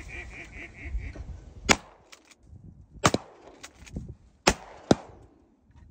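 A run of evenly spaced duck quacks that stops about a second in, then four shotgun blasts fired at flying ducks, the last two in quick succession.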